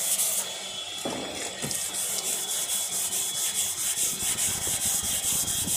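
Hand sanding of hardened car body filler with a sanding block and 120-grit sandpaper: quick back-and-forth rasping strokes, about four a second, with a short lull about half a second in.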